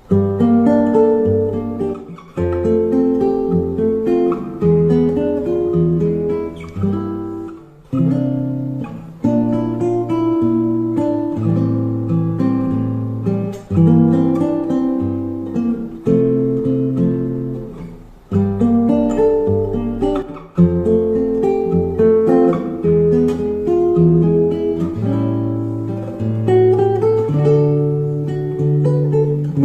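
Acoustic guitar playing a slow instrumental piece. Its plucked notes ring out and fade, and short breaks between phrases come every few seconds.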